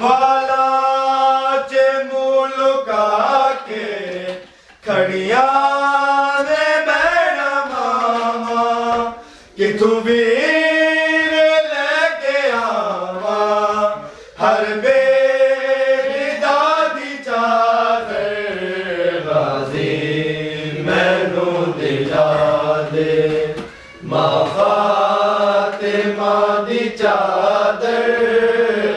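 A man chanting a Punjabi noha, a Shia mourning lament, unaccompanied. He sings long sliding melodic phrases of about five seconds each, with a short breath between them.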